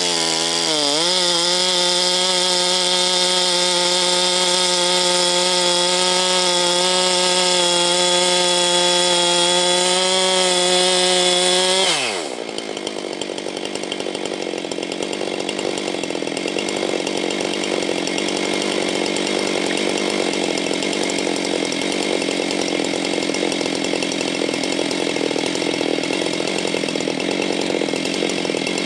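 Husqvarna 390 XP chainsaw with a 37-inch bar revving up and held at high revs for about twelve seconds. The engine speed then falls away sharply, and the saw runs rougher and noisier at lower speed. It revs up again near the end.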